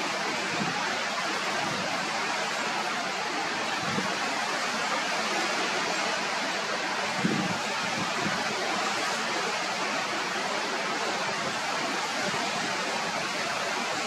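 Steady, even rushing hiss with no bird calls, and a brief low thump about seven seconds in.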